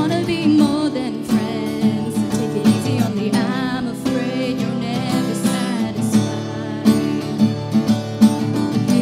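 Acoustic guitar strummed in a live acoustic song, with a female voice singing over it through a microphone.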